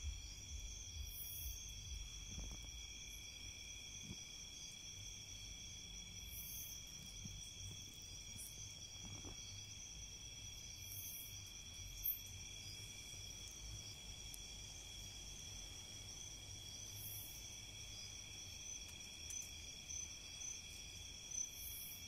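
Chorus of night insects trilling in several steady, unbroken high tones, with a short, higher buzz coming back every five seconds or so and a soft thump about twelve seconds in.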